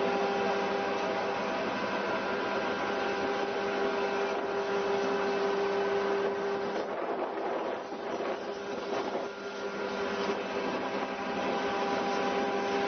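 A boat's engine running steadily: an even drone with several held tones over a rushing noise.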